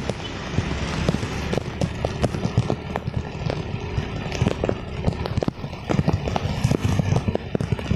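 Heavy rain on a motorcycle ride: a steady hiss of rain and wet tyres, broken by many irregular sharp taps of raindrops striking the phone and its microphone.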